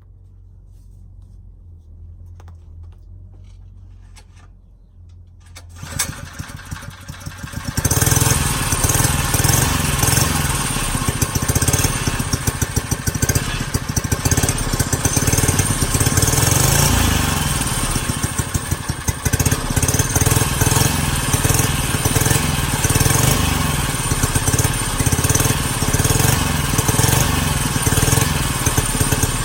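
A pocket bike's small engine is started about six seconds in, catches within a couple of seconds, then runs loud and steady with some rises and falls in revs. Before it starts there is only a faint low rumble.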